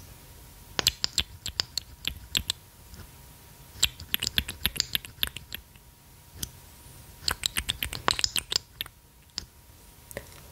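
Small glass lip oil bottle being opened and closed by hand, its screw cap and applicator wand clicking and tapping against the glass in three quick clusters of sharp clicks.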